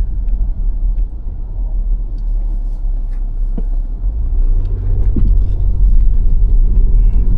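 Low rumble of a car driving, steady road and engine noise that eases off about a second in and grows louder again about halfway through.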